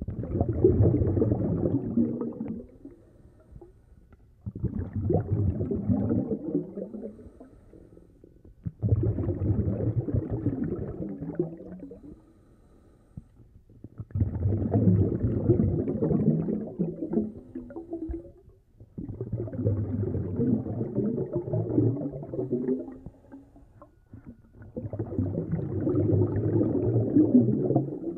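Scuba diver breathing through a regulator: a burst of gurgling exhaled bubbles of about three seconds, repeated roughly every five seconds in time with the breaths, six times.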